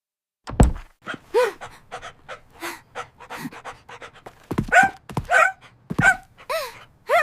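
Dog panting rapidly, breathy puffs broken by several short falling whines, after a single thump about half a second in.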